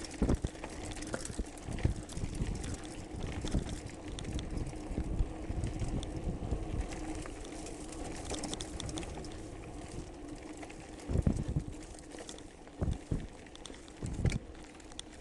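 A mountain bike ridden downhill over a stony, rutted dirt trail, heard from a camera mounted on the bike: a steady rumble of tyres on gravel with irregular knocks and rattles as the bike jolts over rocks. The hardest knocks come in clusters about two-thirds of the way in and near the end.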